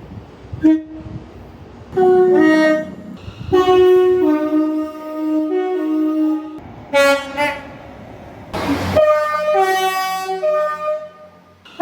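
Train horn sounding a series of blasts, its two tones alternating high then low, with a short toot about a second in. A brief rush of noise comes just before the last blasts.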